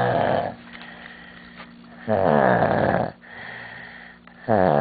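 Loud snoring: a heavy snore about every two and a half seconds, each dropping in pitch at its start, with softer breathing between.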